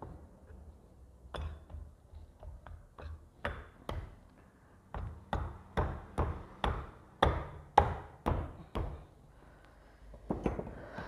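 Sharp metallic knocks as a new cylinder block is tapped down into place on a Bajaj Pulsar engine during a rebuild. The knocks are scattered at first, then come about two a second through the middle, and there are two more near the end.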